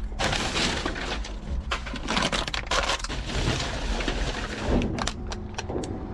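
Paper and plastic trash crinkling and rustling as a gloved hand digs through a dumpster, dense and crackly for most of the time, easing off after about four seconds with a few sharp clicks.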